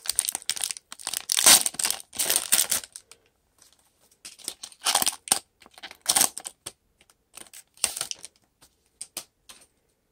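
Foil trading-card pack wrapper being torn open and crinkled by hand, in a run of sharp crackling rustles that is densest in the first few seconds, then comes in shorter bursts and stops about a second before the end.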